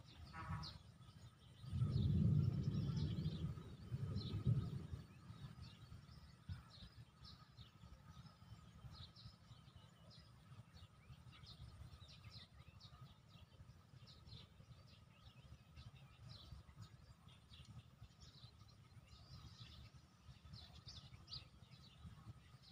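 Small birds chirping over a low, steady background rumble. About two seconds in, a louder low rumble rises and lasts about three seconds.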